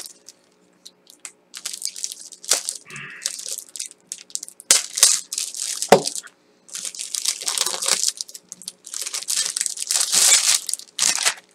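Packaging being torn open and crinkled by hand: irregular rustling and tearing in several bursts, the loudest stretches in the second half.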